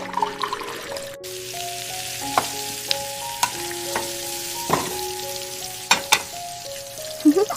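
Food sizzling as it fries in a pan, with several sharp taps of a cooking utensil, over a soft melody of held notes.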